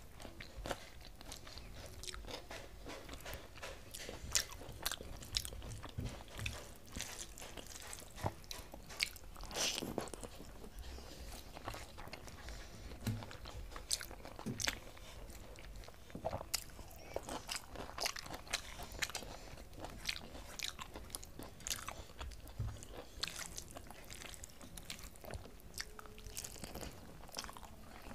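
Close-up eating sounds: a person chewing mouthfuls of rice and curry eaten by hand, with many irregular wet mouth clicks and smacks. There is also fingers working the rice on a steel plate.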